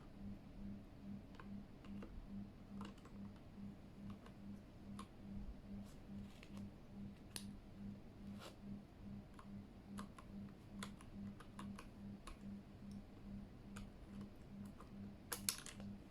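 Scattered clicks from a Keychron K8 mechanical keyboard being handled and pressed, a few at a time, with a louder cluster near the end. A faint low hum pulses about three times a second underneath.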